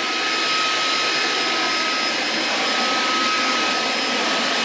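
Ganiza cordless stick vacuum with a 280 W brushless motor running steadily on its high setting: an even rush of suction air with a thin high whine from the motor.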